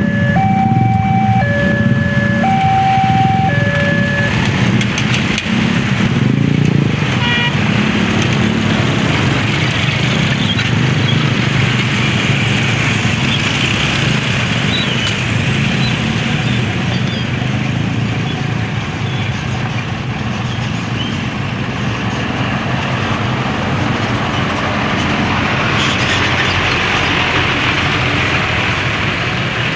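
Railway level-crossing warning signal sounding a repeating two-tone chime, the two notes alternating, which stops about four seconds in. A steady low rumble of engines runs underneath and carries on after the signal stops.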